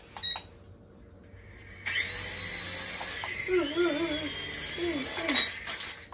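Small electric motor and rotors of a toy RC helicopter spinning up with a steady high whine as it lifts off. The whine stops about five and a half seconds in as the helicopter comes back down.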